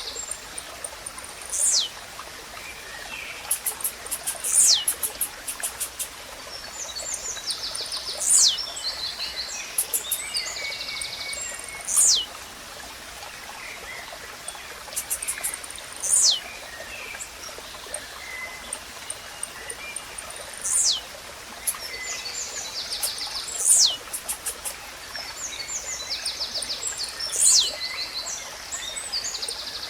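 Blue-black grassquit (tizil) singing a short, sharp, high note that sweeps downward, repeated every three to four seconds. Other birds chirp and trill in between over a steady watery hiss.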